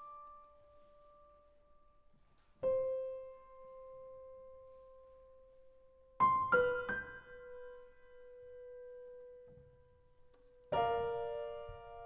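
Piano playing a slow, sparse passage of a TV score: single notes and chords struck a few seconds apart, each left to ring and fade, with a quick run of three notes in the middle.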